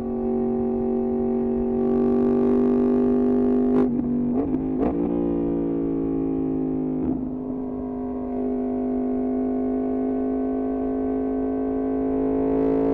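Yamaha MT-10's crossplane inline-four running through an Austin Racing exhaust at a steady, even drone. A few short breaks come about four to five seconds in, like a gear change. After them the note sits slightly lower and slowly rises as the bike pulls.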